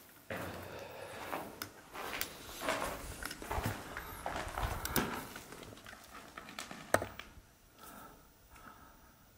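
Footsteps crunching on rubble in a tunnel: a run of irregular steps and scrapes, with one sharp click about seven seconds in, then quieter for the last two seconds.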